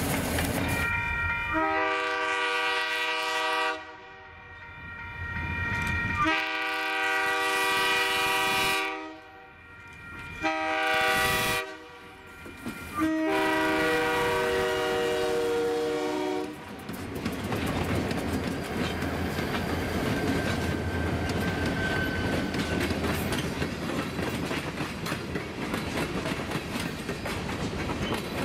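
A diesel locomotive's air horn sounds a chord in four blasts, long, long, short, long: the grade-crossing signal. Then freight cars roll past with a steady rumble and clickety-clack of wheels over the rail joints.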